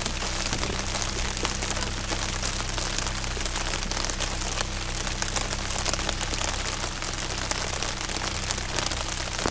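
Pouring rain falling steadily on the lake surface and pattering on an open umbrella, with a faint steady low hum underneath.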